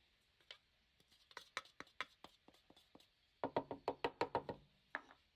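A metal rasp zester knocking against a wooden bowl, tapping lemon zest off into the scrub mix. Scattered light clicks give way to a quick run of about seven knocks in the middle, and a few more follow near the end.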